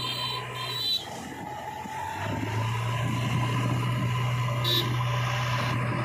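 Diesel engine of a JCB 3DX backhoe loader running as the machine drives along the road, a steady low drone with a brief high whine in the first second.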